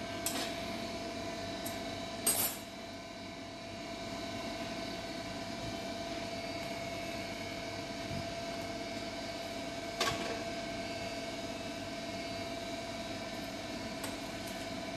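Gas stove burner flame burning with a steady hiss under a wire roasting grate. A few sharp metal clinks of tongs against the grate come near the start and again about ten seconds in.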